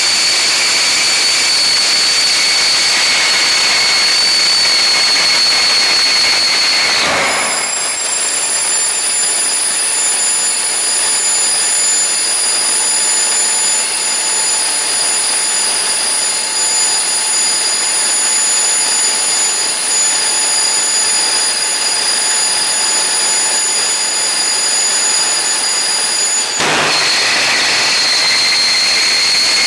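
Homemade turbojet engine with afterburner running at full noise on a test stand: a steady jet roar with a high turbine whine. The whine jumps abruptly to a higher pitch about seven seconds in and drops back to its first pitch near the end.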